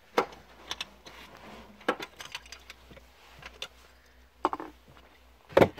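Sharp clicks and clinks of small hard parts and tools being handled during trim removal, a scattered string of them with the loudest near the end.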